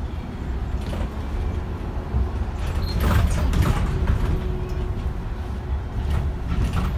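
City street traffic: a steady low rumble, with a vehicle passing about three to four seconds in.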